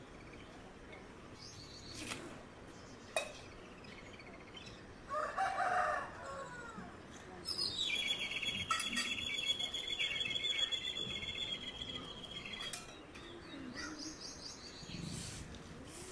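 A rooster crows once, about five seconds in. A few seconds later a high, steady ringing trill starts and runs for about five seconds.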